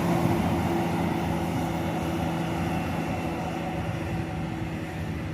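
A large bus engine droning as the bus passes, its steady low hum slowly fading.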